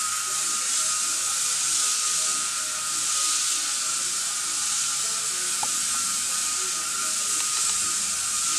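Steady hiss of compressed air from an air-powered tool worked against the side of an RV, with a thin, steady whine under the hiss.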